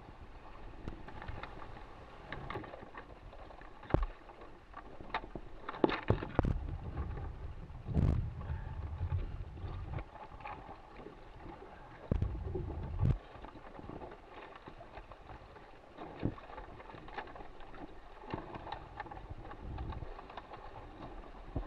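Shallow water lapping and sloshing around a small sailing dinghy's hull, with gusts of wind rumbling on the microphone. Scattered knocks and clicks come from gloved hands handling the boat's fittings.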